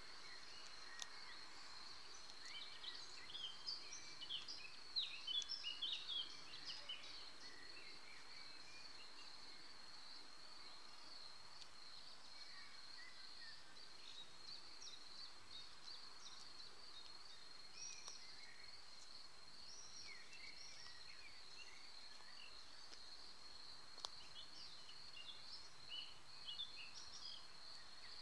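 Quiet garden ambience: small birds chirping in short high notes over a steady, high-pitched trill. The chirping is busiest in the first several seconds and again near the end, with one sharp tick a little before the end.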